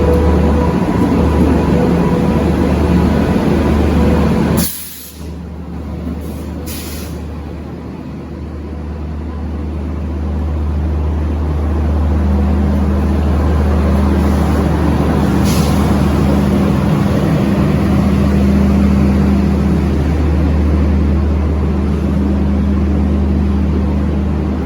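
Passenger train hauled by a WAP-7 electric locomotive pulling in: a steady low rumble and hum, with a few short hisses of air brakes. The sound drops abruptly about five seconds in and then builds back up.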